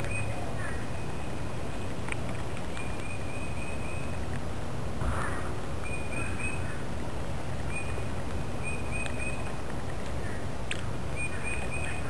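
Pine siskins pecking seed in a plastic feeder tray close to the microphone: a few sharp clicks, and a brief rustle about halfway through. Short runs of high bird chirps come every second or two over a steady low rumble.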